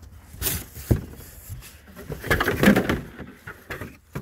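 Cardboard and plastic wrapping rustling and scraping as a black plastic lawn-mower bagger part is lifted out of its shipping box. A short burst about half a second in, and a longer, louder stretch about two to three seconds in.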